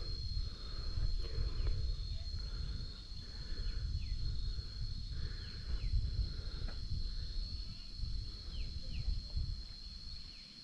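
Insects droning steadily at a high pitch, with a constant low wind rumble on the microphone and a few short, falling chirps.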